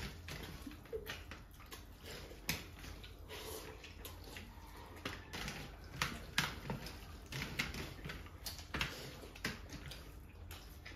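Hands squishing and mixing rice with curry on metal platters, with faint, irregular clicks and wet mouth sounds of chewing, over a steady low hum.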